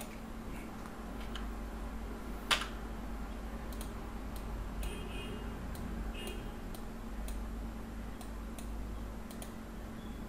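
Scattered computer mouse clicks, a dozen or so at uneven intervals, the strongest about two and a half seconds in, over a steady low electrical hum.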